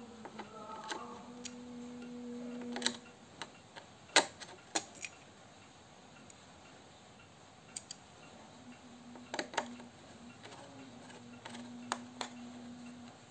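Sharp clicks and light taps of a screwdriver and a metal M.2 heatsink cover as the cover is screwed back onto a motherboard. There are about eight scattered clicks, the loudest about four seconds in, some in quick pairs. A low steady hum sounds twice, near the start and in the second half.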